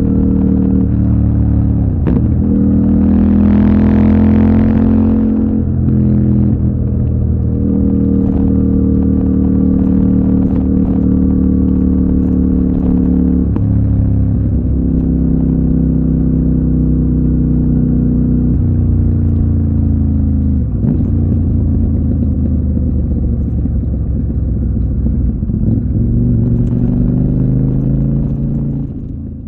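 CFMOTO 800NK's parallel-twin engine running under way, its pitch held mostly steady but dipping briefly about five times, with a brighter surge a few seconds in. The sound cuts off suddenly at the end.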